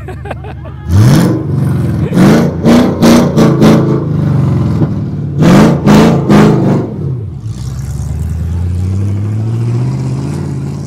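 An off-road vehicle's engine revving hard in a string of sharp throttle blips, first rising about a second in and again in a second cluster a few seconds later, then running on with its pitch slowly climbing under steady throttle.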